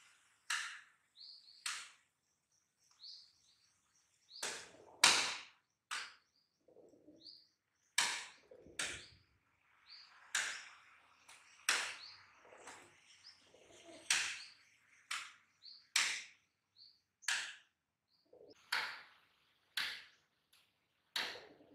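Pigeons fighting, striking each other with their wings: sharp wing slaps at irregular intervals, roughly one a second and sometimes in quick pairs, the loudest about five seconds in. Faint bird chirps between the slaps.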